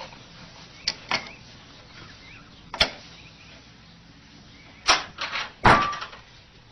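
Sharp wooden clicks and knocks of a puzzle box's latch and door as a cat works its way out: two light clicks about a second in, a single knock near three seconds, and a louder cluster of clacks near the end.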